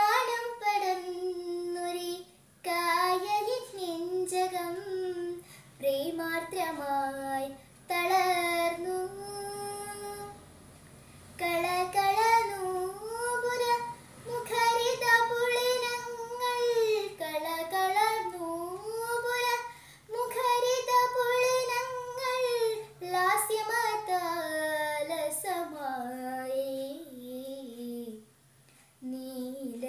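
A young girl singing a Malayalam light song (lalithaganam) unaccompanied, in phrases broken by short pauses for breath, with several long held notes.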